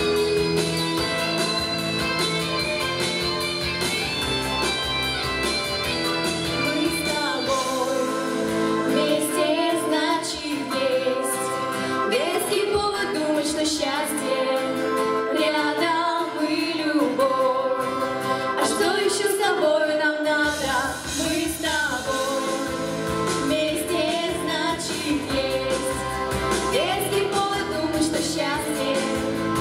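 Two girls singing a pop song as a vocal duet into microphones over an instrumental accompaniment with guitar. The first several seconds are instrumental, and the voices come in about seven seconds in; the bass drops out for a stretch in the middle and returns about twenty seconds in.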